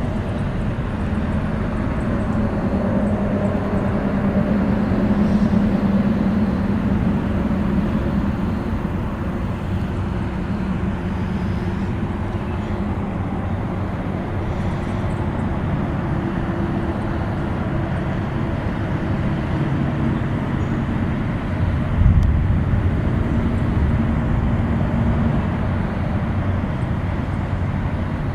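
Steady highway traffic from cars and trucks on the interstate, a continuous low rumble that swells a few seconds in. A short low thump about three quarters of the way through.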